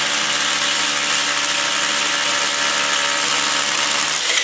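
Rotary hammer drilling a hole into a concrete floor with a masonry bit that has gone out of true: a steady motor whine over a harsh hiss. It stops abruptly near the end.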